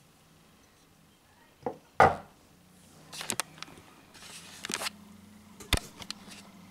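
Handling noises: short clicks and knocks, with one loud thump about two seconds in, a rustle a little later and a sharp click near the end.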